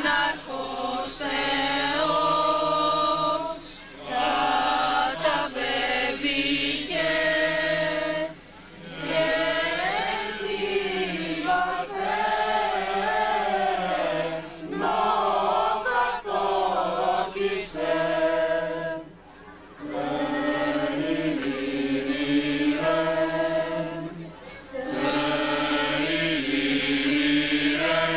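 A choir of mixed voices singing together in long phrases with held notes, pausing briefly between phrases.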